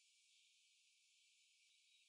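Near silence with a faint steady hiss, a pause between song phrases.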